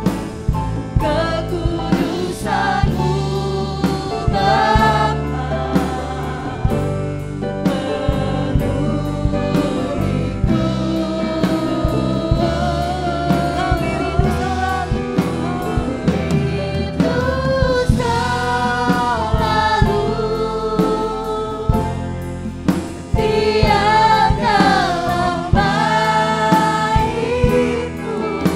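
Live worship band with drum kit playing under sung vocals, with backing singers joining in.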